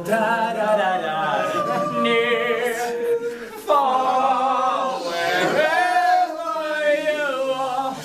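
A group of men singing together in chorus, holding wavering notes and moving to new ones every second or two.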